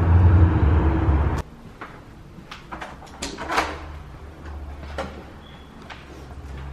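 Low engine rumble from an idling delivery truck, cut off abruptly about a second and a half in. Then an apartment door is opened, with a few handle and latch clicks and knocks, the loudest about three and a half seconds in.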